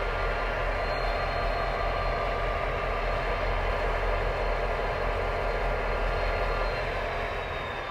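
Diesel-electric freight locomotives, X-class X48 leading, running steadily as they creep toward the hopper wagons to couple up: a deep engine rumble with a thin high whine over it that dips slightly in pitch near the end.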